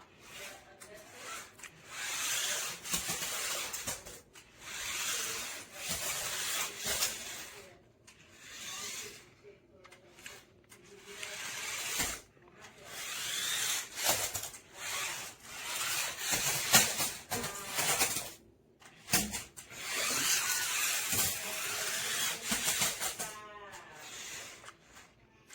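Toy RC stunt car's small electric drive motors whirring in stop-start bursts of a second or two as it is driven, with a few sharp knocks.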